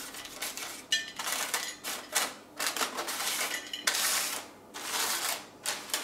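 Crisp oven-baked almond-and-mozzarella tortilla chips slide off baking paper onto a ceramic plate. They make a string of light clicks and clatters, the paper rustles, and there is a longer rattling slide about four seconds in.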